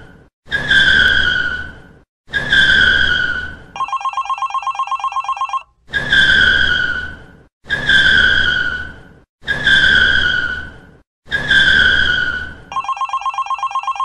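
Car tyres screeching in a drift, in short screeches of about a second and a half each that start loud, dip slightly in pitch and fade, with engine rumble underneath. The screeches repeat in a loop: two, then a rapid trilling telephone-bell ring, then four more, and the bell trill returns near the end.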